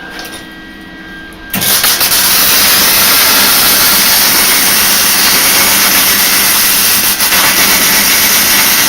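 Lincoln Electric wire-feed (MIG) welder arc, which cuts in sharply about a second and a half in and then crackles and sizzles steadily and loudly. The wire speed has just been turned down, and the arc is still jumping a little.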